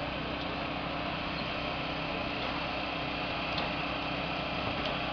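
An engine running steadily at a constant speed, giving an even hum with a few faint clicks.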